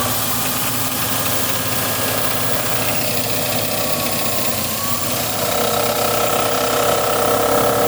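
Berardinucci Tornado machine running steadily, a loud mechanical din with whining tones that grow stronger from about five seconds in.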